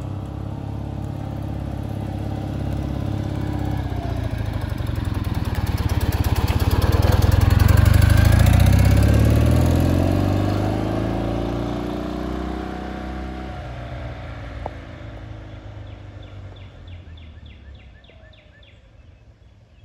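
1969 BMW R60/2's 600 cc flat-twin engine as the motorcycle approaches, passes and rides away. It grows louder to a peak about eight seconds in, rises in pitch as it accelerates, drops suddenly about thirteen seconds in, then fades into the distance.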